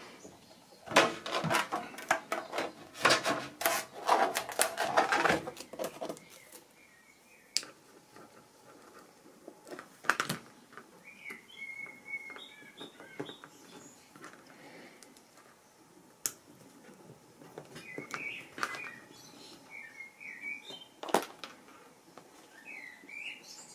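Hands handling a small 3D-printed plastic camera mount: a dense run of clicks and taps for the first few seconds, then occasional sharp taps. Birds chirp in the background from about eleven seconds in.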